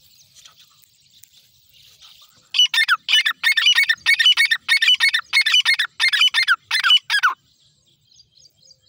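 Grey francolin (teetar) giving its loud territorial call: a rapid series of ringing, repeated phrases, about two to three a second, starting about two and a half seconds in and lasting nearly five seconds. Each phrase ends in a falling note.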